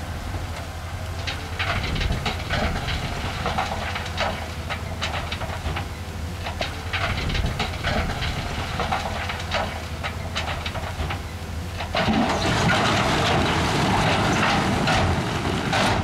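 Heavy diesel earthmoving machinery working rock and soil: a steady engine hum under many sharp clanks and knocks of rock. About twelve seconds in, a louder, even rushing noise sets in.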